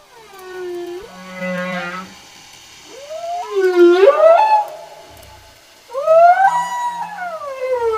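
Whale calls: several long, pitched cries rich in overtones that slide up and down in pitch, with short quiet gaps between them.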